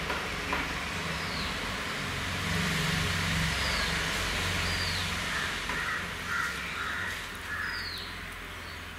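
Outdoor background sound: a steady low rumble and hiss, with a bird giving short, high, falling chirps every second or two.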